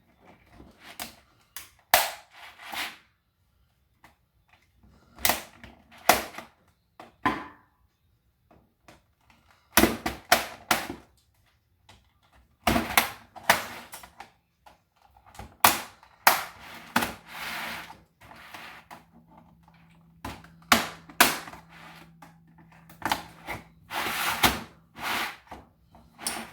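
Plastic computer keyboard case being pried apart with a flathead screwdriver: irregular sharp plastic clicks, snaps and cracks in clusters, with short pauses between.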